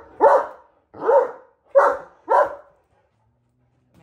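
Great Dane barking: four short barks in a little under three seconds, the last two close together.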